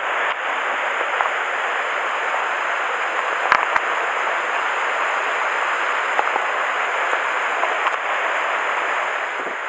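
Mountain stream water running steadily over rocks, with two short clicks close together about three and a half seconds in.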